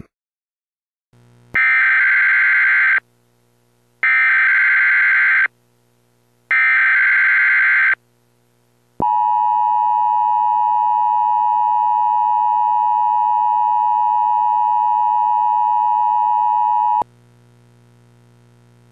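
Emergency Alert System activation: three SAME header data bursts, each a harsh warbling digital noise lasting about a second and a half, then the two-tone EAS attention signal held steadily for about eight seconds before it cuts off sharply, leaving only a faint hum.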